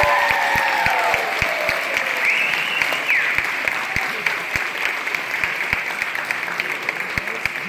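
Audience applauding, with a few cheers over the clapping in the first few seconds; the applause slowly dies down.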